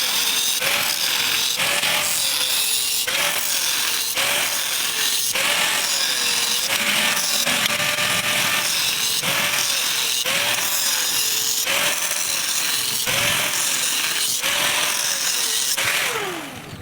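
Angle grinder working metal, its motor pitch dipping and recovering about once a second as the disc is pressed in and eased off. Near the end it is switched off and the motor pitch falls as it winds down.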